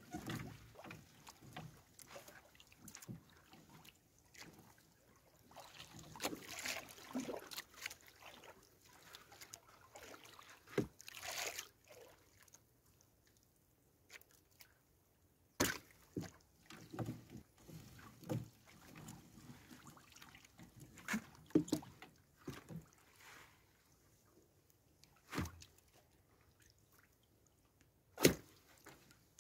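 A fishing net being hauled and handled over the side of a small outrigger boat: rustling net, water dripping and sloshing, and scattered sharp knocks against the boat, the loudest near the end.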